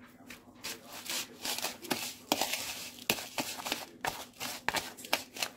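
A utensil stirring and scraping cookie crumbs mixed with jello powder and cream in a bowl, a quick irregular run of short gritty scrapes.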